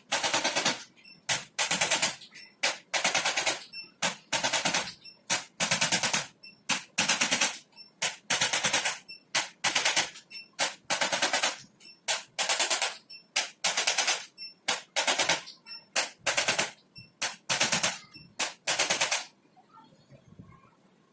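Rapid-fire mechanical rattling from a handheld electric percussion device applied in short pulses, about fifteen bursts roughly a second and a quarter apart. It stops shortly before the end.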